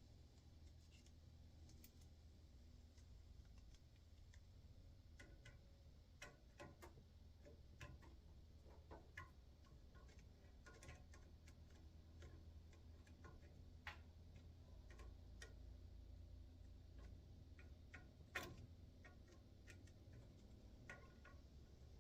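Near silence: a faint low hum with scattered small clicks and taps, the sharpest about 18 seconds in.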